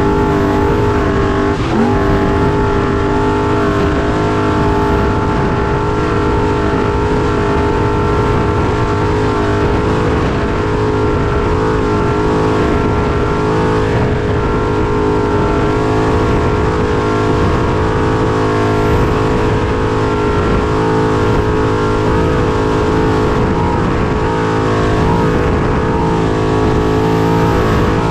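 Trophy truck's race engine running at a near-steady high pitch, heard from inside the cab, over a dense low rumble, with a brief dip in pitch about two seconds in.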